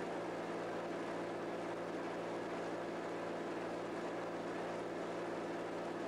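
Raptor prototype's turbodiesel aircraft engine running steadily at low power, heard from inside the cockpit while the aircraft sits on its brakes and the oil warms up before a full-power run-up. The engine gives a few steady, unchanging tones over an even rushing noise.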